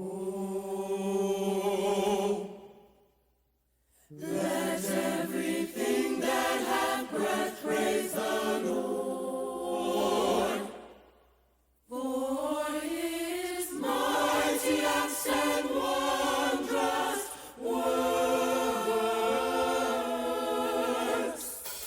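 Gospel choir singing unaccompanied, in held chords. The singing comes in three phrases, with brief silences between them.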